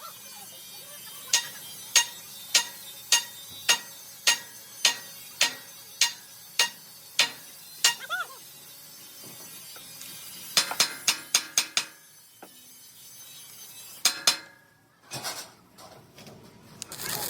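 Hammer blows on steel: a steady series of sharp, ringing strikes, a little under two a second for about seven seconds. Then comes a quicker run of about seven strikes, and two more strikes near the end.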